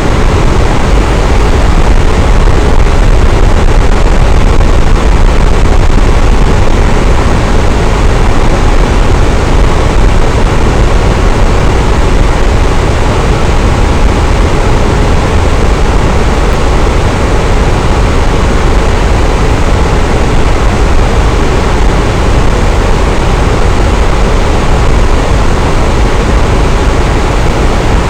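Electric fan running steadily: an even, loud whoosh of moving air with a low rumble underneath, no changes in speed.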